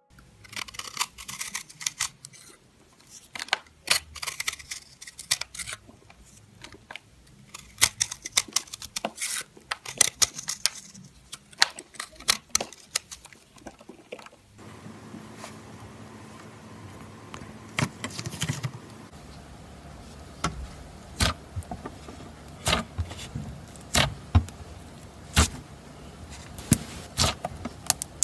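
Crumbly chalk-like material crushed between fingers in a paper cupcake liner, a dense crackling crunch. About halfway it changes to slime being pressed and squished by hand, with separate sharp wet clicks and pops over a faint steady hiss.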